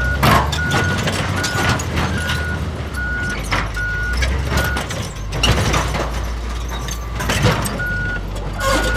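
Bulldozer diesel engine running steadily, with its reversing alarm beeping at a regular pace for the first half and again near the end. Sharp metallic clanks and knocks sound throughout.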